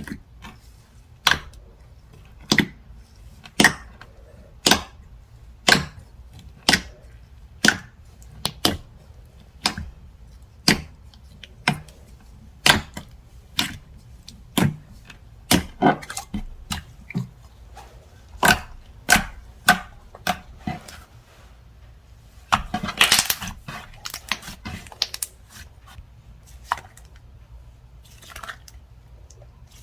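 Slime being pressed and squeezed by hand, giving sharp popping clicks about once a second, then a short, denser run of crackling pops in the last third.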